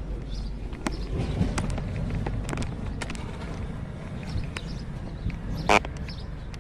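Hand tools working on the power steering pump's mounting bolts: scattered metallic clicks and taps, with one loud ringing metal clank near the end.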